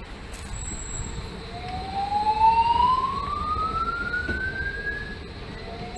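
Building fire alarm speakers sounding a whoop tone: one tone rising slowly in pitch over about four seconds, then starting its rise again near the end.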